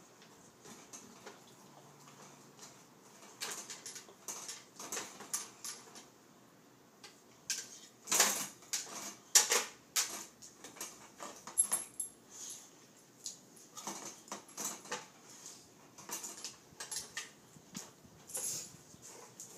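Hard plastic dog treat-puzzle toy knocking and clattering on a tile floor as a dog noses and paws at it: irregular sharp clicks and knocks, the loudest about eight to ten seconds in.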